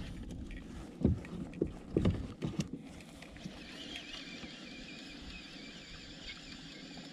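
Several hollow knocks and bumps of fishing gear being handled against a plastic kayak hull in the first few seconds, then quiet with a faint wavering high tone.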